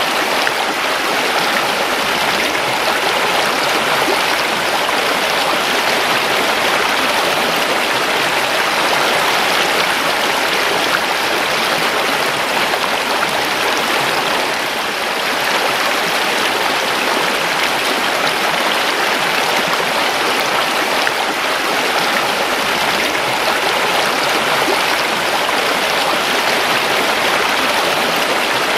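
A creek's water running and splashing steadily over stones.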